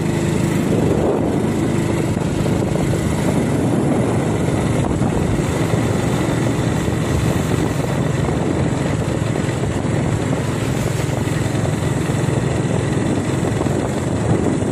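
A vehicle driving steadily along a road: a continuous engine drone with road noise.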